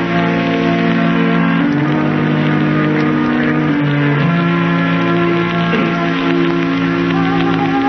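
Scene-change musical bridge in an old-time radio drama: held chords that shift every second or two.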